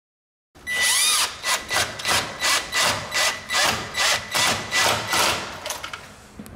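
Cordless Hilti drill-driver driving a screw into the wall to fix an electrical panel frame. The motor runs in a quick series of short pulses with a steady high whine under them. It starts about half a second in and dies away near the end.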